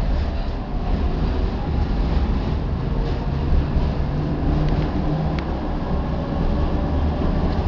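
Tatra T6B5 tram running along its tracks, heard on board: a steady low rumble of wheels on rail, with a faint motor hum in the middle and a single sharp click about five seconds in.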